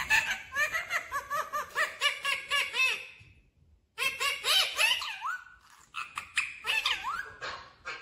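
Indian ringneck parakeet chattering in rapid runs of short, rising-and-falling notes, in three bursts with brief pauses between them, with a couple of quick upward-swooping notes in the second half.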